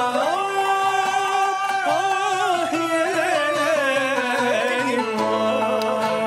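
Turkish classical music: a male voice sings a long, ornamented line with wide vibrato over oud and kanun accompaniment. About five seconds in, the voice gives way to the instruments playing on.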